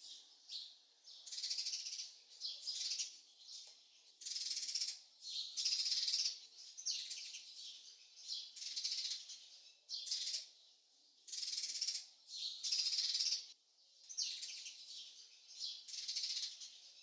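Small songbirds chirping in quick high-pitched bursts, about one every second, a nature birdsong sound effect rather than the peacock's own call.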